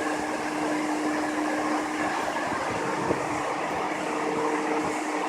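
Yokohama Municipal Subway 10000 series train standing at the platform, its equipment and air-conditioning fans giving a steady hum with a couple of held tones.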